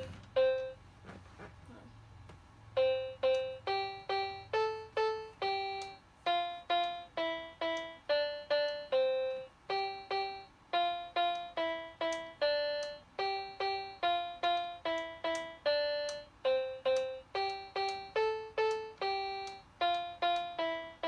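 Melody picked out one note at a time on a 37-key mini electronic keyboard in a piano-like tone. Two notes open it, then after a short pause the tune runs evenly at about two notes a second, each note fading after it is struck.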